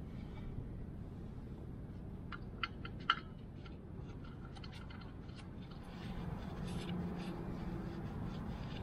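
Gloved hands working a small metal part at a tractor's underside: a few sharp clicks about two and a half to three seconds in, the loudest just after three seconds, then light scratchy handling and rag wiping. A low steady rumble sits underneath and grows louder about six seconds in.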